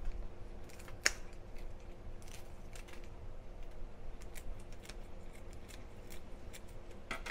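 Kitchen scissors snipping the whiskers and sharp head spikes off raw shrimp: a sharp snip about a second in, then scattered quieter snips at an uneven pace.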